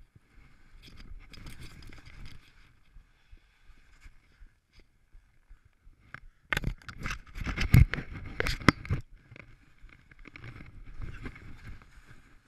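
Skis sliding and scraping on steep snow, quieter at first, then a louder stretch of scraping and clattering from about six to nine seconds in.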